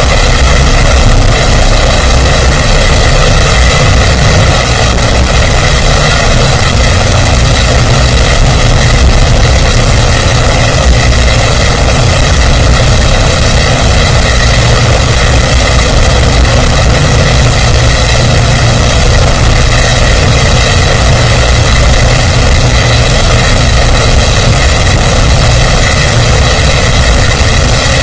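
A loud, steady mechanical drone that does not change in pitch or level.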